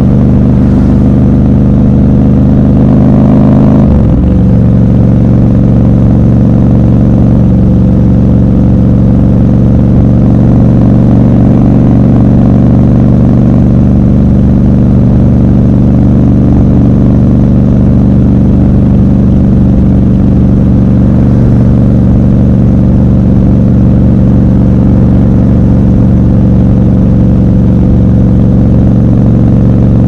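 Triumph Scrambler 1200 XC's 1200 cc parallel-twin engine running while riding, heard from the rider's seat. Its pitch climbs, drops sharply about four seconds in as it shifts up a gear, then holds steady at cruise.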